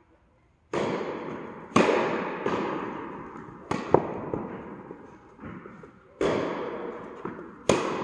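Tennis rally: the ball struck by rackets and bouncing on the court, about half a dozen sharp pops, each trailing off in a long echo in the indoor hall. The loudest hits come about two and four seconds in.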